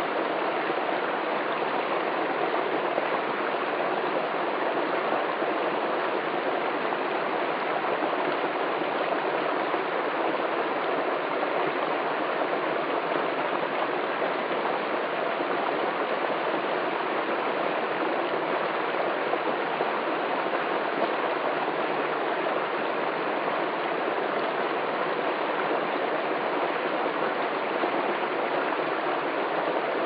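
Small stream of water flowing and splashing over icy rocks in a steady, even rush.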